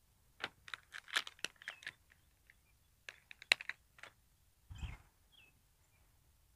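Crinkling and crackling of plastic handled by hand, in two short runs of sharp clicks, then a single dull knock about five seconds in.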